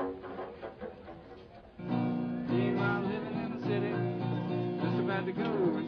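Acoustic guitar playing, growing louder and fuller about two seconds in.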